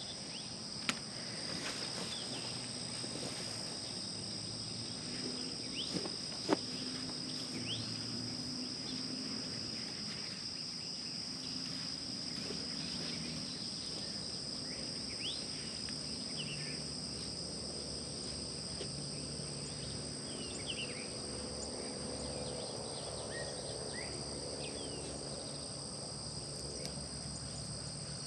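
Steady summer insect chorus, a continuous high shrill at two pitches, with scattered short bird chirps and a low hum underneath. A single sharp knock about six and a half seconds in.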